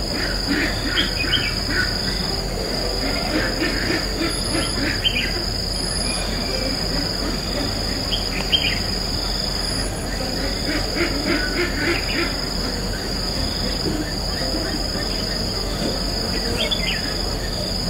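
Red-whiskered bulbuls giving short clusters of chirping calls, several bursts scattered through, over a steady high-pitched insect drone.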